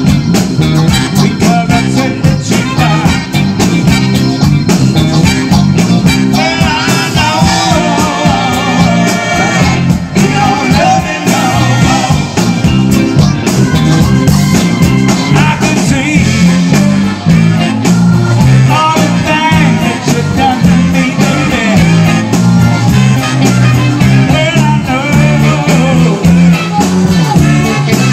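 Live rock-soul band playing: electric guitars, electric bass, drum kit and organ, with a woman singing the lead vocal.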